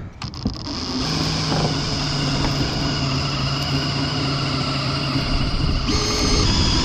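Power drill driving a Stripmeister wire stripper, stripping insulation off salvaged copper wire: a steady motor hum that starts about a second in and shifts in pitch near the end.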